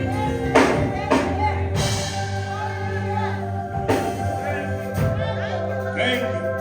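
Church music: sustained held chords with drum hits and voices singing.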